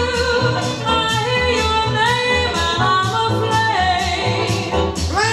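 Swing-style song recording playing, with long held notes over a steady bass and drum beat.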